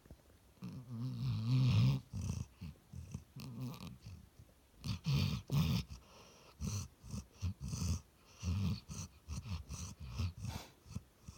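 A sleeping dog snoring and dreaming: a longer snore about a second in, then a run of short, irregular sleep sounds.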